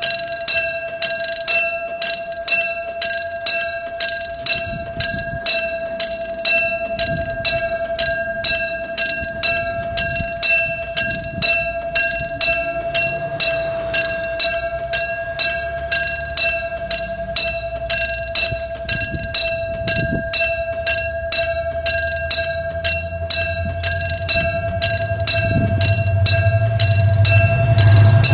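Mechanical strike-type level-crossing warning bell ringing steadily, struck about twice a second with each stroke ringing on at one pitch. Over the last few seconds the low rumble of an approaching train grows louder beneath it.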